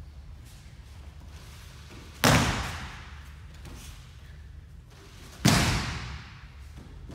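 Two breakfalls on the tatami mat, about three seconds apart, as an aikido partner is thrown and slaps down. Each is a sharp slam followed by an echo that dies away over about a second.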